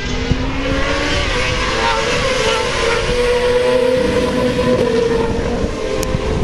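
Racing motorcycle engines running hard around the circuit, several engine notes at once that rise and fall in pitch as the bikes accelerate and change gear.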